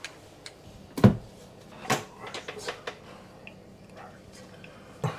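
Knocks and clicks of hands working on electrical wiring at a wall box: a sharp knock about a second in, another just before two seconds, then a quick run of lighter clicks and taps, with one more knock near the end.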